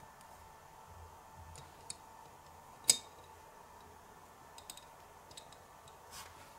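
Small plastic toy pieces clicking as a clear plastic cat-shaped piece is set into a miniature plastic utensil stand: one sharp click about three seconds in is the loudest, with a few lighter ticks before and after it.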